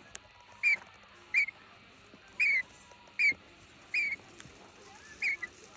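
A budgerigar chirping: six short, high calls in a series, under a second apart.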